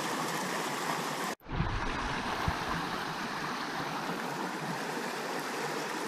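Small rocky creek running over stones, a steady rush of flowing water that cuts out for a moment about a second and a half in, then carries on.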